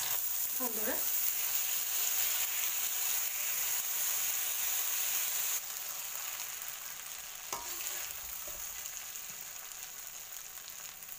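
Freshly washed joha rice sizzling as it fries in hot oil and ghee in a steel pan while being stirred with a metal spoon; the wet grains hitting the hot fat give a loud hiss. The sizzle drops suddenly a little past halfway and fades, with two light clicks of the spoon against the pan.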